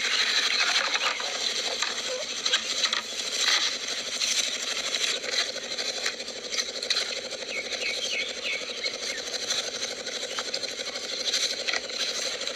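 Irregular rubbing and scraping of hands handling a plastic bucket, cup and bottle on grass, with many short clicks over a steady outdoor hiss.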